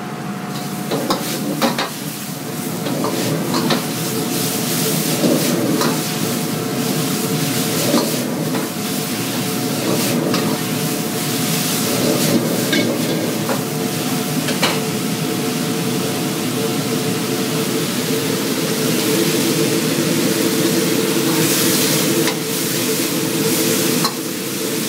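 Egg noodles and vegetables sizzling as they are stir-fried in a wok. A metal spatula scrapes and clacks against the wok again and again.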